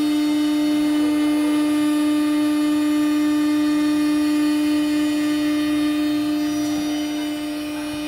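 CNC router spindle running at constant speed, a steady, unchanging whine.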